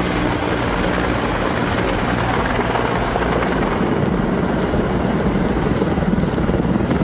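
Logging helicopter running steadily overhead: a dense engine and rotor noise with a rapid even chop and a thin high whine that slowly sinks in pitch.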